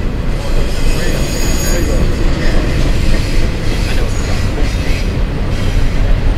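CSX double-stack container freight train rolling over a bridge: a steady heavy rumble of wheels and cars, with high-pitched wheel squeal coming and going twice.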